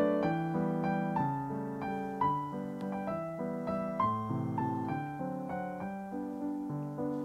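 Background piano music: a melody of struck notes, each starting sharply and fading, a few notes a second over lower chords.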